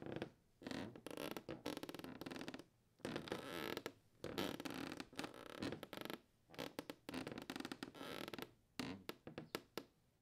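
Stuttering, crackling bursts of noise that start and cut off abruptly and irregularly, like a glitch or static sound effect.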